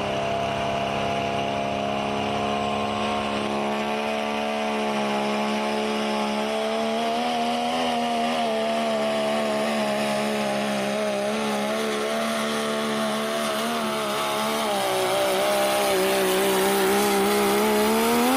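Diesel pulling truck's engine held at high revs under load through a pull, its pitch wavering slightly and climbing a little near the end.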